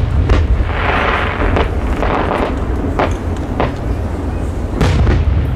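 Aerial firework shells bursting in the sky: a run of sharp bangs a second or so apart, over a steady low rumble of wind on the microphone.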